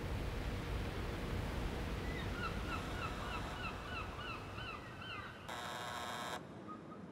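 Wind rumbling on the microphone with a bird chirping in a quick run, about four calls a second, from about two seconds in. About five and a half seconds in the wind cuts off and an electronic alarm clock buzzes for about a second, the loudest sound here.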